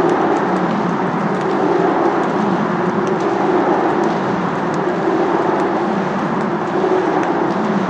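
Steady city traffic noise: a dense, even hum with no distinct events.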